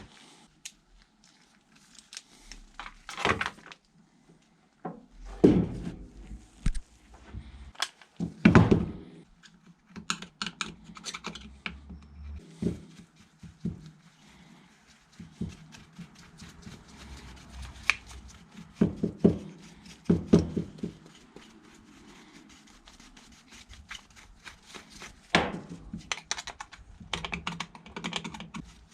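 Irregular knocks, taps and clattering of hand work on a chainsaw, knocking caked sawdust and debris off the saw's parts.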